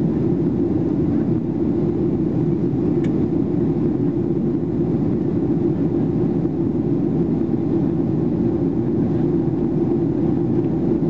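Steady cabin noise inside a Boeing 737-800 in flight: the even rumble of its CFM56 jet engines and the airflow past the fuselage, heaviest in the low notes.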